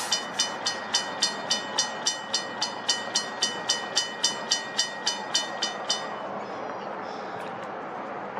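Railroad grade crossing bell ringing rapidly, about three to four strokes a second, warning of an approaching train while the gate arms come down. It falls silent about six seconds in.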